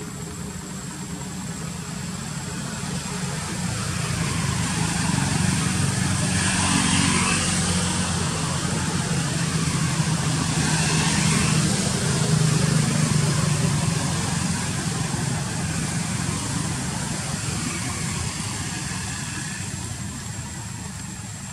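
A motor vehicle's engine running as a low, steady hum. It grows louder over several seconds, stays loud through the middle, then slowly fades.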